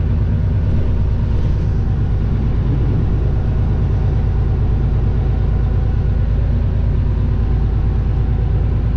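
Diesel engine of a tractor unit (semi truck) running steadily under way, heard from inside the cab as a constant low hum.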